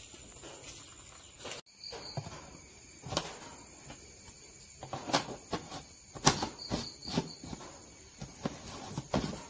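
Screw-top lid of a plastic can being closed by hand: a series of hollow plastic clicks and knocks, the loudest about six seconds in. A steady high insect trill runs underneath.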